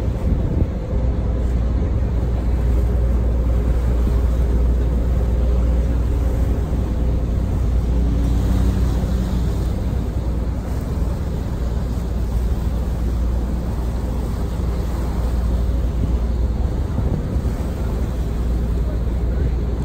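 Staten Island Ferry's engines running with a steady low rumble, heard from on board.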